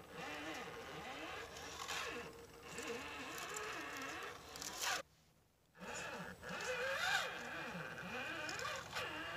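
Axial UMG10 RC rock crawler's electric motor and gears whining, the pitch rising and falling over and over as the throttle is worked, with small clicks and knocks. The sound cuts out abruptly about halfway through for under a second, then starts again.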